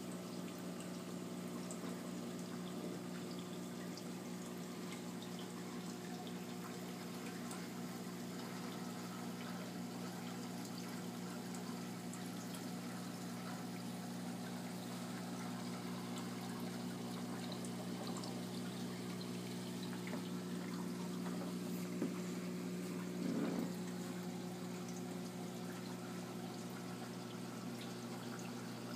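Saltwater aquarium equipment running: water trickling and pouring over a steady low electric hum, with a brief louder splash or knock about three-quarters of the way through.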